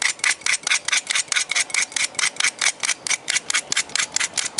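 A resistor's wire lead being scraped bare to clean it for soldering: rapid, even scraping strokes, about six a second.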